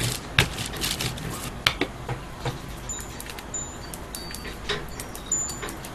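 A rubber brayer, then a metal spoon, rubbed over paper on a board, with scattered light clicks and taps over a soft rubbing: the paper is being pressed down onto a matte medium transfer to push out air bubbles.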